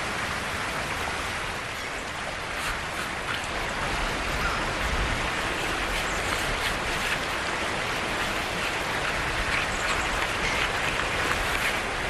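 Steady rush of river water pouring over the falls, a continuous even roar.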